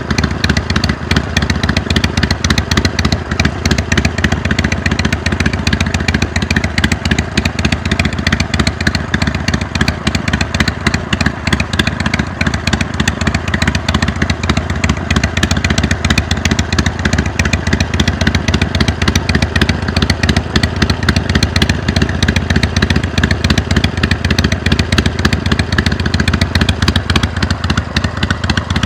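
Harley-Davidson Iron 883's air-cooled V-twin running steadily through a Jekill & Hyde flap-valve exhaust, a loud, even beat of rapid exhaust pulses.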